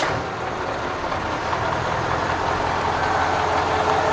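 Scania truck's diesel engine running steadily and slowly growing louder, after a brief click at the very start.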